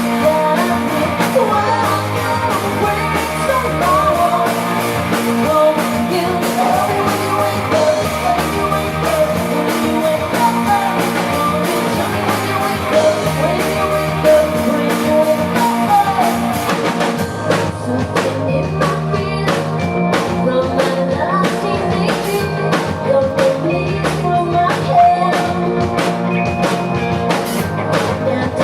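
Live rock band playing a song, with singing over guitar and a drum kit. About halfway through the sound thins out, and sharp, regular drum hits stand out under the vocal.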